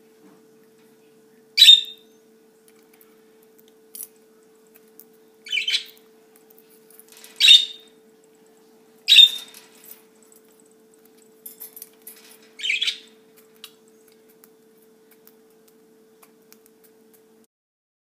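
Budgerigars giving short, sharp chirps, five in all, a few seconds apart, over a faint steady hum.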